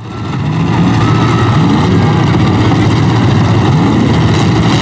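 Several demolition derby car engines idling and revving together, their pitch repeatedly sweeping up and down; the sound fades in over the first half second.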